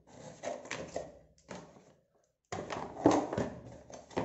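Hand rummaging among batteries and a charging cable in a cardboard box, making clicking, rattling and rustling handling noise in two spells with a short pause about halfway through.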